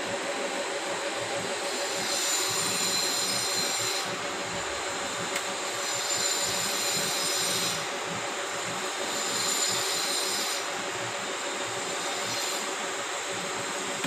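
Steady mechanical hum with an even hiss under it. A higher hiss switches on and off every two seconds or so.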